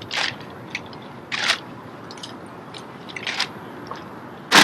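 Drill team's rifles being handled in unison: a few sharp clacks and slaps of hands striking the rifles, the loudest near the end.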